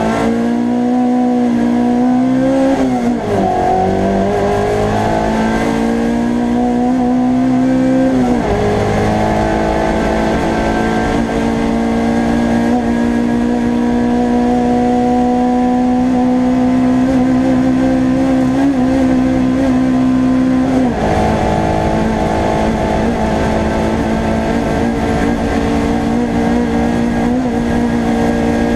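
A hillclimb race car's engine, heard from inside its stripped, roll-caged cabin, pulling hard under full acceleration. The revs climb and drop sharply at three upshifts, about 3, 8 and 21 seconds in, then hold high and steady in the upper gears.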